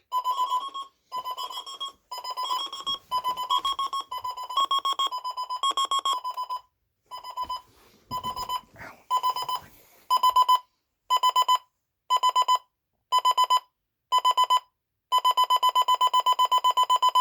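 Several digital alarm clocks beeping at once, high-pitched electronic beeps in repeated bursts at two slightly different pitches. Past the halfway point one alarm's beeping comes in short bursts about once a second, then turns into continuous rapid beeping near the end, the escalating stage of an alarm left ringing.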